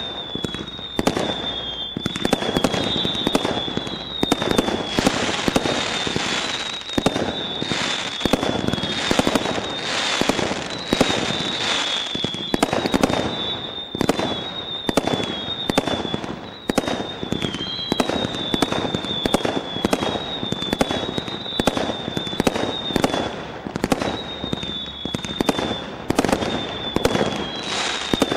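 Brothers Pyrotechnics Dark Angel 100-shot combination Roman candle barrage firing continuously: sharp shots and bursts follow one another about two to three a second, over a high whistle that runs almost without a break.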